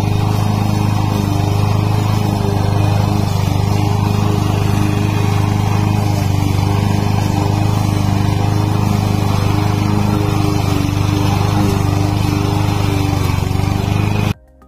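Honda HRJ216 walk-behind lawn mower's four-stroke petrol engine running steadily at a constant speed, likely while mowing grass. It stops abruptly near the end.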